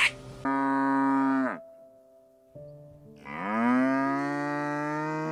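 Cow mooing twice: a call of about a second that drops in pitch at its end, then after a short pause a longer moo that rises, holds and falls away.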